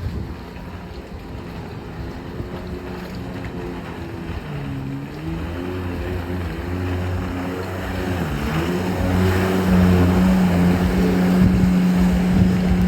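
Jet ski engine running, its pitch dipping twice and then holding steady and higher while it grows steadily louder.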